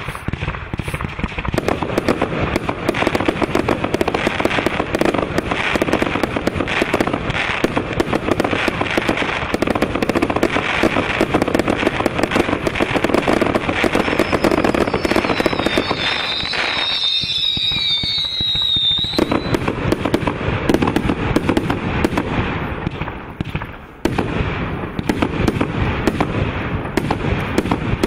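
SQS19116 mixed-size fireworks cake firing a rapid, continuous barrage of shots and crackling bursts. Around the middle, a high wavering whistle rises over the barrage for a few seconds, and a brief lull comes before the firing picks up again.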